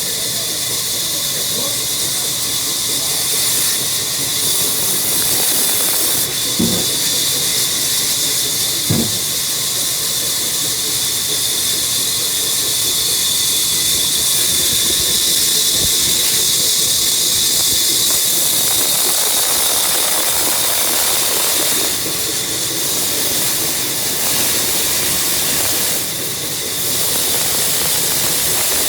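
Woodworking machine cutting wood, a steady high-pitched hiss, with two short knocks about seven and nine seconds in.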